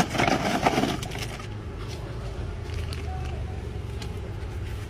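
Steady low hum of road traffic, with a brief loud rustling burst about a second long at the start and a few faint clicks later.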